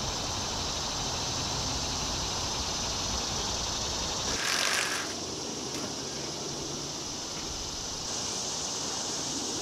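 Summer field ambience: a steady high-pitched insect drone, with low wind rumble in the first few seconds. About four and a half seconds in there is a brief louder rush of noise.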